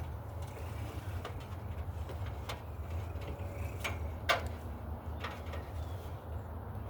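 Short scrapes and taps of electrical cable being handled and laid out, the loudest a little past four seconds in, over a steady low rumble.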